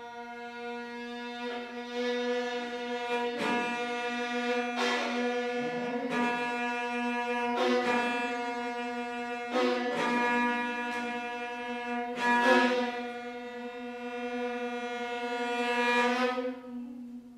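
Violin and cello duo playing the closing bars of a piece. A steady low drone note is held throughout while sharp accented bowed strokes repeat over it. The music builds louder to a final stroke near the end, then stops and rings away.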